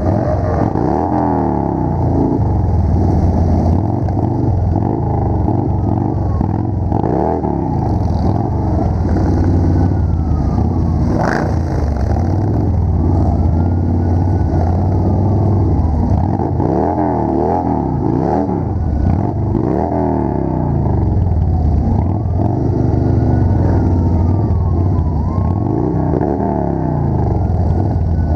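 Motorcycle engines running in a loud, steady low rumble, the revs rising and falling again and again as the bikes ride on at low speed.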